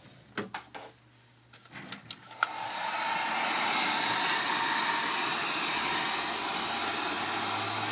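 A few handling clicks and knocks, then about two and a half seconds in a heat gun's blower starts and runs steadily on high, blowing hot air on a phone's charger port to melt its solder.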